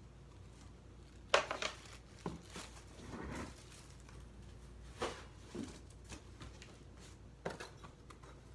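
Ceiling fan parts and packing material being handled during unboxing: a handful of separate knocks and clacks, with a short rustle about three seconds in.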